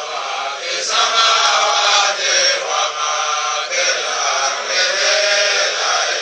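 Several voices chanting a sung refrain together.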